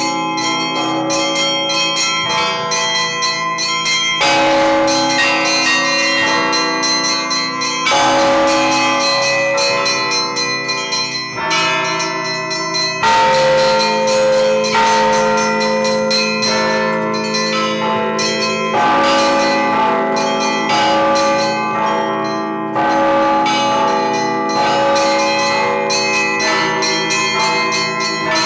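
Russian Orthodox church bells rung by hand: a rapid run of strikes on small bells over larger bells whose tones ring on, with fresh strong strokes every four to six seconds.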